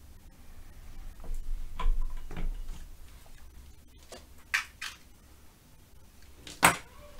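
A handful of light clicks and taps from small hand tools handled on a workbench during micro-soldering, the sharpest click near the end, over a steady low hum.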